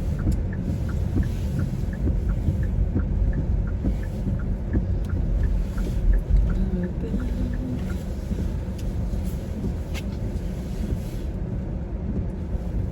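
Car interior on the move: steady low road and engine rumble in the cabin. A light regular ticking, about three a second, runs over it and stops about halfway through.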